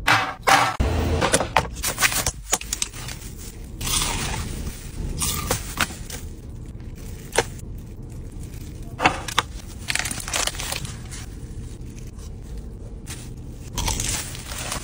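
Close-miked eating: a run of irregular crunchy bites and chewing of crisp baklava pastry and other food, with a fork scraping a bowl and plastic crinkling between them.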